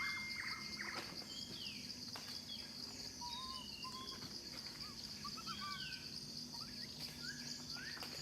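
Wild outdoor ambience: a steady high insect drone with many short bird chirps and whistles scattered through it. A bell-like ding from just before fades out at the very start.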